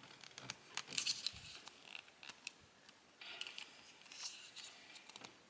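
Faint plastic scraping and small clicks as a removable plastic tail is worked onto a Pokémon Rhydon action figure. The rustling comes in short spells, about a second in and again from about three seconds in.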